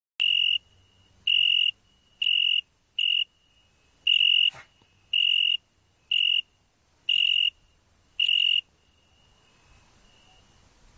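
Cricket chirping: nine loud, high, clear chirps, about one a second, each lasting under half a second, stopping a couple of seconds before the end.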